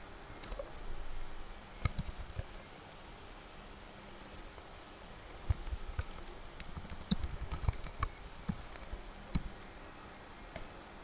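Typing on a computer keyboard: a few scattered key clicks, then a denser run of keystrokes from about halfway through.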